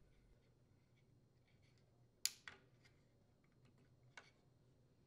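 Near silence with a few faint clicks of a plastic chainsaw trigger and its spring being seated in the handle: a sharper click about two seconds in, a smaller one just after, and another about four seconds in.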